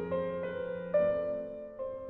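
Background piano music: slow, gentle notes with sustained chords, a new note struck about a second in.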